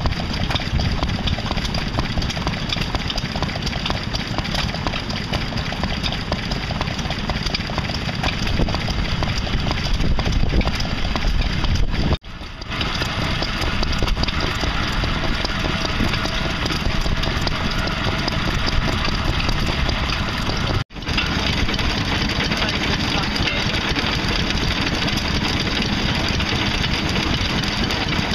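Vintage Lister single-cylinder stationary engines running steadily with an even firing beat, heard in three separate takes broken by abrupt cuts about 12 and 21 seconds in.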